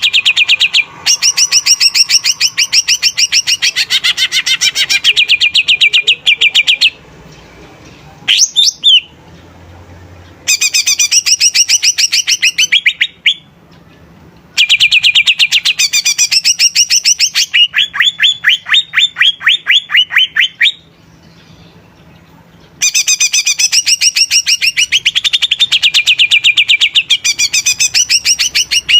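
Cucak ijo (green leafbird) singing loudly in five long bouts of very rapid, repeated high chattering notes, each bout lasting a second to several seconds, with short pauses between.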